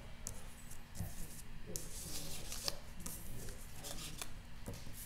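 Hands rubbing and sliding cardstock and patterned paper on a work surface, with scattered small rustles and clicks.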